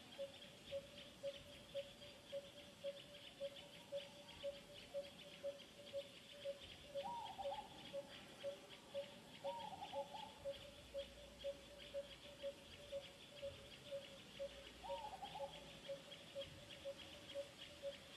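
Outdoor wildlife ambience: a single low note repeated steadily about twice a second over a continuous, fast high-pitched rasping, with three short falling calls around the middle.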